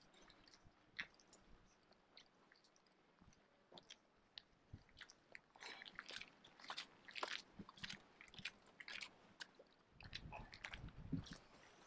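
Faint crunching footsteps on a gritty paved lane, with scattered clicks that come more often after about halfway. Wind starts rumbling on the microphone near the end.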